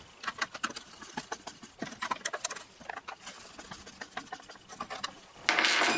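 Small irregular metal clicks and taps of a screwdriver and a 3/8 in wrench tightening 3/16 in AN3 bolts through a plastic box. A louder, brief scraping noise comes near the end.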